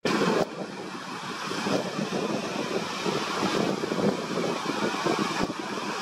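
Steady beach ambience of wind and surf: an even, unbroken hiss, with no bird calls standing out.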